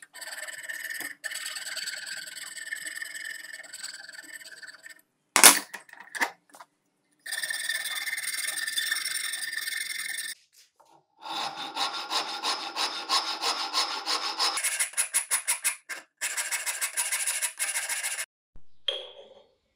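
Fine-toothed hand saw cutting a wooden knife handle held in a vise, in several runs of quick strokes split by short pauses, with one sharp knock about five seconds in. Near the end a file rasps across the wood in quick strokes.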